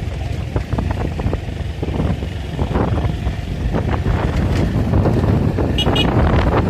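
Motorcycle riding on a dirt road, its engine running under heavy wind buffeting on the microphone, which grows louder after about five seconds. Two brief high chirps sound about six seconds in.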